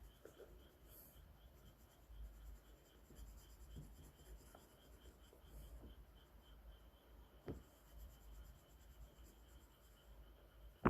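Faint strokes of a drawing tool scratching across paper as a pinecone is shaded in, with a light tap about seven and a half seconds in and a sharper click at the very end.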